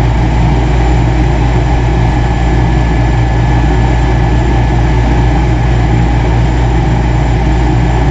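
Steady low mechanical hum of a Lennox G51 furnace's motor running, constant in level throughout.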